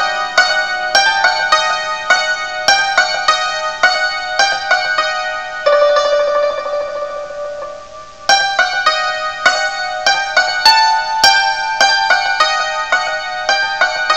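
Persian santoor played solo with its light hammers: quick runs of struck notes ringing over the metal strings. About six seconds in, one note is held as a rapid tremolo (riz) that fades away for about two seconds before the struck melody resumes.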